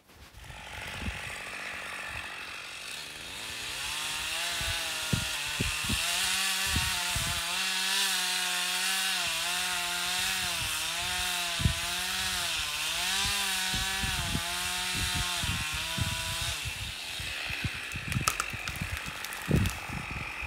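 Two-stroke chainsaw felling a tree: the engine climbs to full revs about three seconds in and runs under load, its pitch wavering up and down as it cuts, then drops away a few seconds before the end. Scattered sharp cracks and knocks follow near the end.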